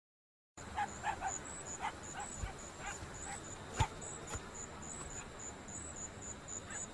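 Faint outdoor ambience beginning after a short silence about half a second in: an insect, likely a cricket, chirping steadily in a high, even pulse, with scattered short animal calls and a single sharp click partway through.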